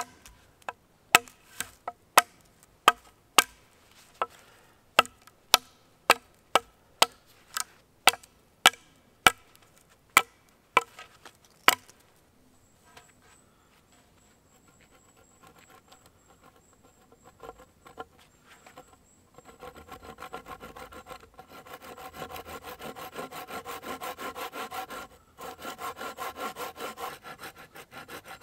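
Sharp wooden knocks, about two a second, for roughly the first twelve seconds; then, after a pause, a hand saw cutting into a peeled wooden pole in quick, even rasping strokes.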